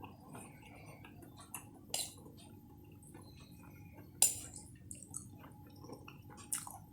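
Cutlery clinking against dishes at a meal: a handful of sharp clinks, the loudest about four seconds in, with small quieter clicks between.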